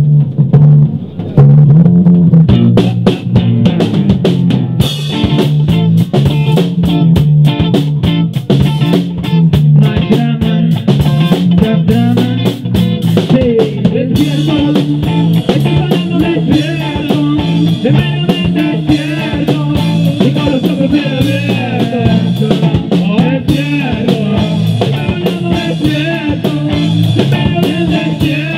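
A rock band plays an instrumental passage with electric guitar, bass guitar and drum kit, coming in at the start over a repeating bass line, with the drums growing busier after a few seconds.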